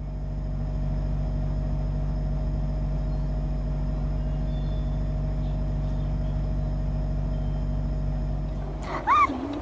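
A steady low hum that stays level, then a kitten's short meow, rising and falling, near the end.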